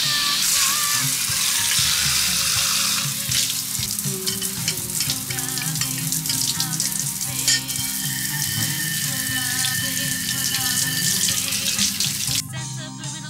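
Shower head spraying water, a steady loud hiss, with a wavering tune faintly underneath. The spray cuts off suddenly near the end and music takes over.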